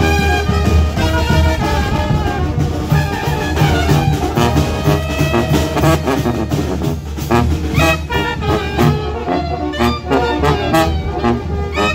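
Mexican village brass band (banda de viento) playing live: clarinet, alto saxophone, trumpets and tuba over a snare drum and a bass drum with cymbal. The drum strokes come through sharper in the second half.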